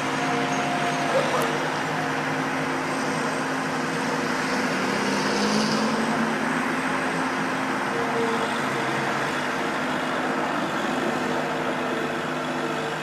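Steady road traffic noise with one sharp knock about a second in, the knock of a loose storm-drain grate.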